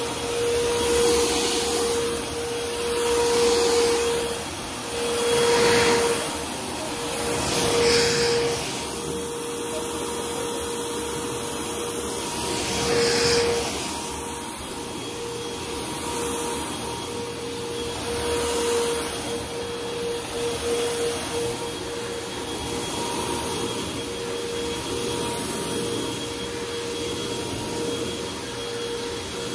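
Upright vacuum cleaner running on shag carpet, its motor holding a steady hum under a broad rushing air noise. The sound swells and fades every few seconds as the vacuum is pushed and pulled across the carpet.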